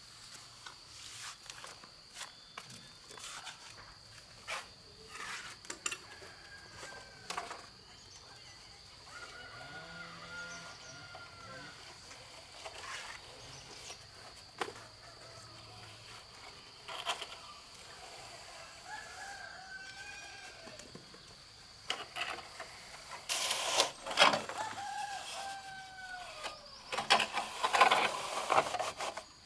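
Roosters crowing several times, each a long bending call, over a steady high-pitched insect drone. Scattered sharp clicks, and two louder noisy scrapes near the end.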